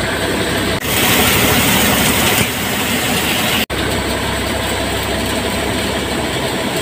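Tractor-driven 60 hp threshing machine running steadily, powered by an Eicher 548 diesel tractor, while pigeon-pea plants are threshed. A louder, hissier rush rises about a second in and lasts about a second and a half.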